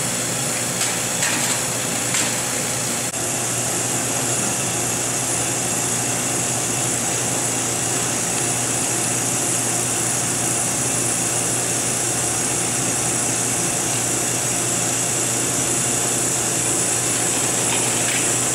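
Running vacuum-pump equipment making a steady mechanical hum with a strong high hiss over it. A few light knocks come about one and two seconds in.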